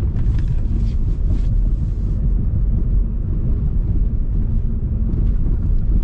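Lada Vesta's worn original suspension on a badly broken road, heard inside the cabin: a loud low rumble of the car jolting over the holes, with a run of knocks and clatter in the first second or two. The shaking is strong and something inside the car rattles, mostly at the rear.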